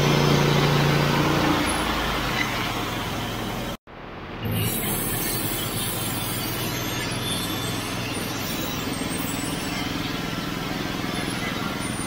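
Portable sawmill's gas engine running steadily. Its pitch drops about a second and a half in, the sound breaks off briefly just before four seconds, and then it runs on at a steady lower pitch.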